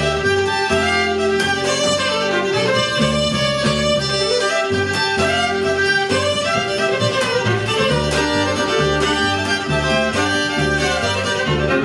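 Two cross-tuned fiddles in open-octave G D G D tuning playing an old-time Appalachian fiddle tune, with a steady drone note held under the melody and a rhythmic line of low bass notes underneath.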